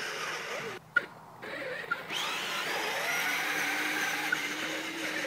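Electric drive motor and plastic gearbox of a stock 12-volt Power Wheels Kawasaki Super Shock ride-on toy dirt bike whining steadily. It cuts out briefly with a click about a second in, then runs again.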